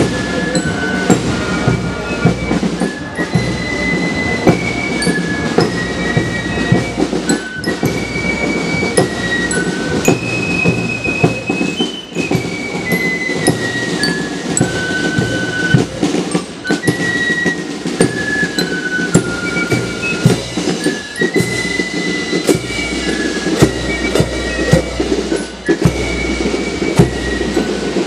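A marching drum corps playing a march: snare drums keep a dense, steady beat under a high, shrill flute melody of held notes, with a bass drum below.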